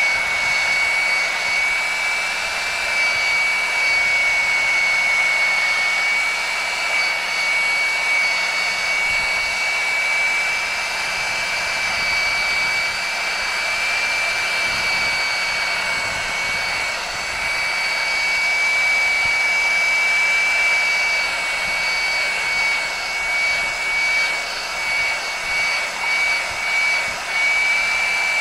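Heat gun running, blowing hot air onto heat-shrink tubing: a steady rush of air with a steady high whine over it. The sound wavers in the last few seconds.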